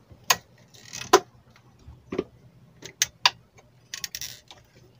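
Irregular clicks and taps from hands handling a CRT television's circuit board, cables and connectors, with a couple of short rustles.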